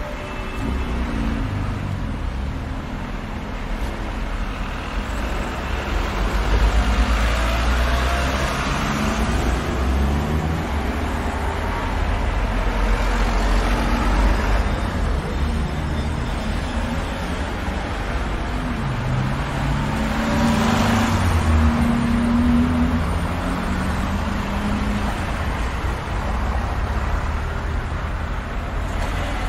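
City street traffic: a steady rumble of car engines and tyre noise as cars drive through a busy intersection. It swells each time a single car passes close by.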